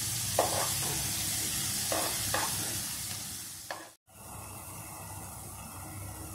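Banana slices sizzling in melted butter in a non-stick frying pan. A metal spoon knocks and scrapes against the pan four times as the slices are turned. The sound cuts out briefly about four seconds in, then the sizzle carries on more softly.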